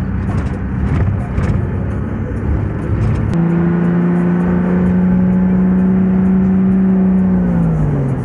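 A vehicle engine and road noise heard from inside the cab while driving. About three seconds in, the engine settles into a steady pitch, then falls in pitch near the end as it slows.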